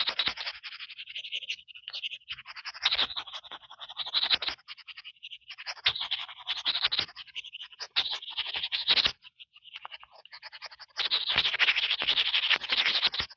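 Fingertips scratching and tapping on an earphone microphone: a scratchy rasp with small taps in several bursts, broken by pauses of about a second, then cutting off just before the end.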